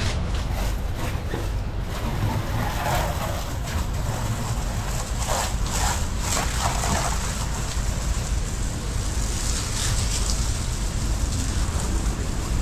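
Water from a garden hose spray nozzle hissing and splashing against a yacht's white deckhead and side windows during a washdown, over a steady low rumble.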